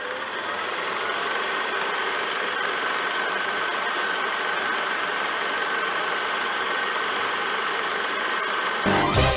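Film projector running: a steady mechanical whir with a thin high tone through it. Loud music cuts in abruptly near the end.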